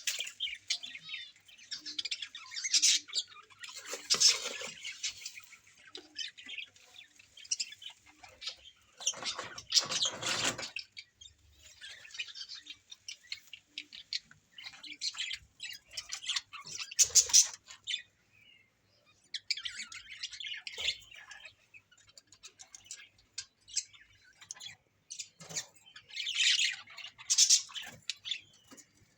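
A group of small birds chirping and squawking in short, scratchy bursts that come in clusters with brief gaps. A louder rustling burst comes about ten seconds in.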